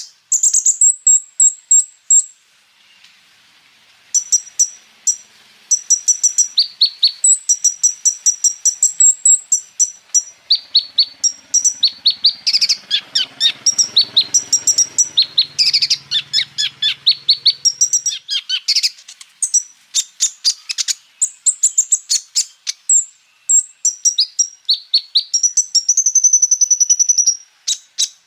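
Kolibri ninja sunbird singing a loud, fast song of high chips and trills, with rapid rolling runs in the middle and a held high note near the end.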